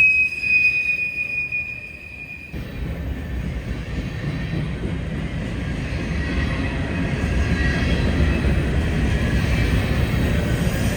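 A train rolling along the rails: a steady high-pitched wheel squeal that cuts off suddenly about two and a half seconds in, then the steady low rumble of the cars going by.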